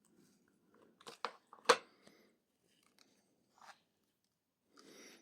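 Dry pipe tobacco being handled and rubbed between the fingers, with a few short crisp sounds, the loudest a sharp one just under two seconds in.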